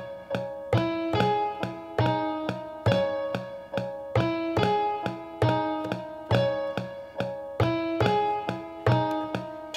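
A piano sound on an Akai MPC One+, played from its pads: a repeating melody of single notes on a steady pulse, each struck sharply and then ringing and fading.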